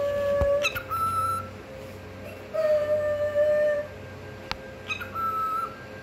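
Cockatiel whistling: a run of clear, steady whistled notes, each held up to about a second, a lower note alternating with higher, shorter whistles, with short pauses between.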